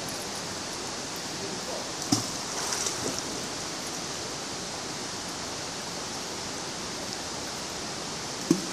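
Steady rushing of flowing river water, with two short sharp knocks, one about two seconds in and one near the end.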